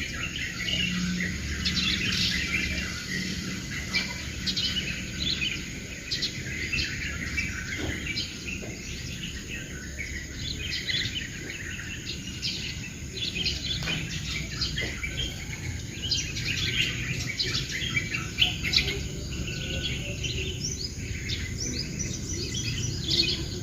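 Several songbirds chirping and twittering together, many short overlapping calls in a busy morning chorus, over a steady low background hum.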